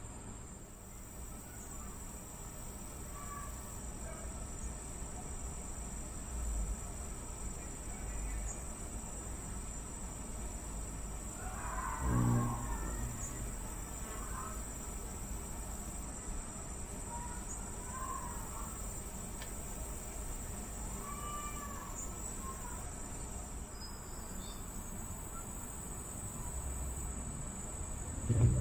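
Steady high-pitched insect trilling, with a few short bird chirps scattered through. A brief low hum comes about twelve seconds in and again at the very end, as a ruby-throated hummingbird flies in to the feeder.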